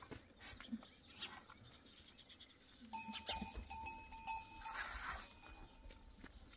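A goat being hand-milked into a metal pot: from about halfway in, squirts of milk strike the pot in a quick rhythmic run, and the pot rings with a metallic ping.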